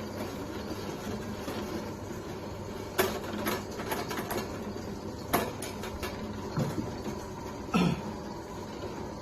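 Small pill-rolling machine for herbal pills running with a steady motor hum, with a few sharp knocks and clicks from about three seconds in as it is loaded with fresh dough.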